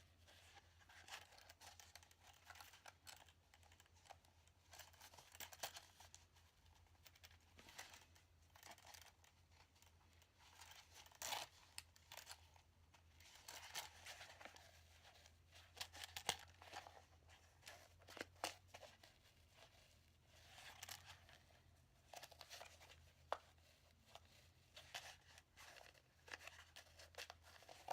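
Faint rustling, scraping and metallic clicks of steel handcuffs being handled and forced into a tight handcuff case, with a steady low hum underneath.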